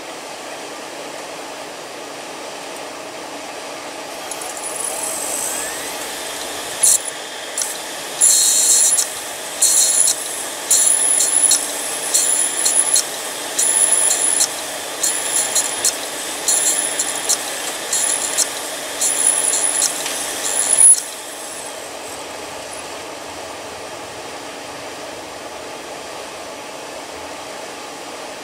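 Hard drive with a damaged read/write head, clicking in repeated short bursts about once a second for some fourteen seconds before they cut off suddenly, over a steady whirring hiss. This is the typical clicking of a failed head.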